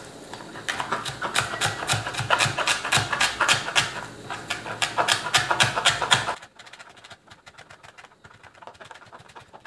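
Chef's knife chopping fresh coriander on a cutting board: quick, even strokes about four a second, each a sharp knock on the board. The chopping stops about two-thirds of the way through, leaving only faint ticks.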